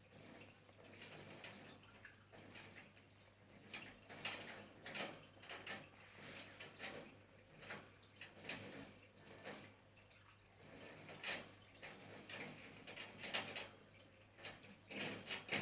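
Budgies chirping and chattering quietly, a string of short, irregular high calls and clicks.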